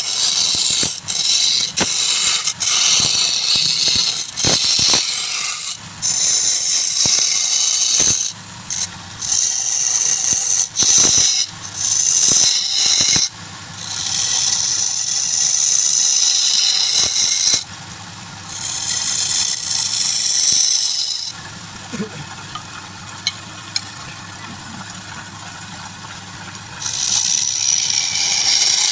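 Wood lathe running while a turning tool cuts the spinning wood: repeated passes of hissing scraping with short pauses between, over the steady hum of the lathe. The cutting stops for several seconds about two-thirds through, leaving the hum and a few clicks, then starts again near the end.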